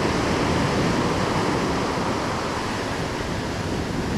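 Ocean surf breaking on a sandy beach: a steady rush of waves, with foam washing up the sand.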